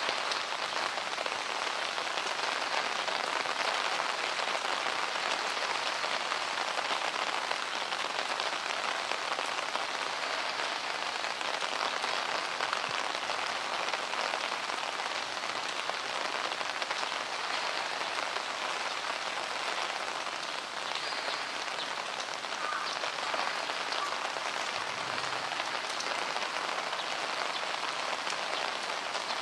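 Downpour of heavy rain, a steady, even hiss of falling drops.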